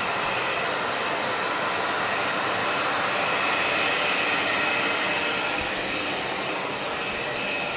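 Handheld electric hair dryer running steadily, blowing air onto a German Shepherd's fur to dry it; it gets a little quieter about six seconds in.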